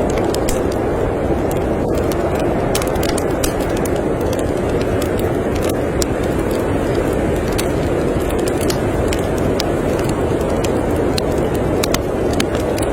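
Steady storm wind blowing, with a wood fire crackling and popping in short, irregular snaps over it.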